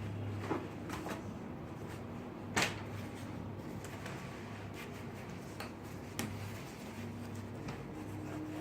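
A few short knocks and clicks of handling, the loudest about two and a half seconds in, over a steady low hum.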